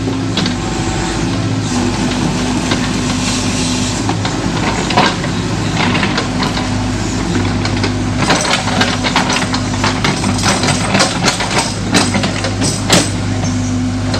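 Tracked hydraulic excavator's diesel engine running steadily while the bucket digs, with repeated knocks and scrapes of the bucket and linkage working the soil, thickest in the second half.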